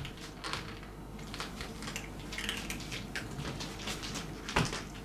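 Scattered light rustles, small clicks and knocks of a person moving about close by, over a low room hum, with one louder knock near the end.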